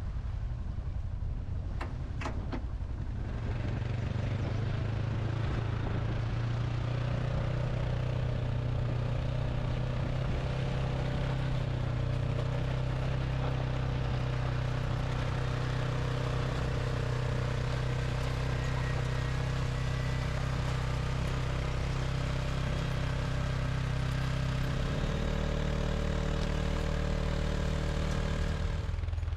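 ATV (four-wheeler) engine running steadily under load as it tows a boat on a trailer up a gravel portage road. The engine note steps up a few seconds in and changes again near the end. Two sharp knocks come about two seconds in.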